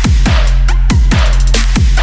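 Loud electronic dance music with a heavy bass line and a fast beat of sharp drum hits and falling bass drops, in a dubstep or drum-and-bass style.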